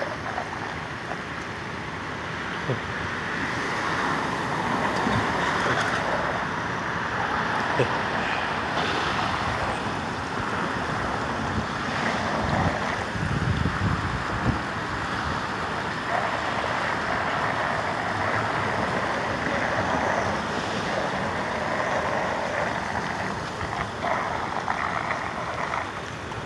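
Wind gusting on a phone's microphone over a steady outdoor rushing noise, with irregular low rumbles from the gusts.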